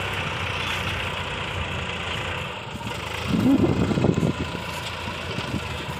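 Diesel engine of a 40 hp Sonalika tractor running steadily as it hauls a trailer heavily loaded with sugarcane over soft field ground. A brief louder sound with a rising pitch comes about three seconds in.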